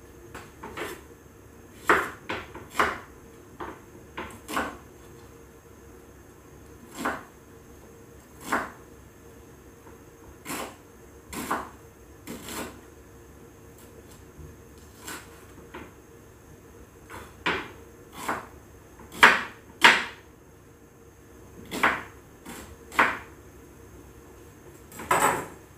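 Irregular wooden knocks, singly and in pairs about a second or two apart: a kitchen knife striking a wooden cutting board while chopping.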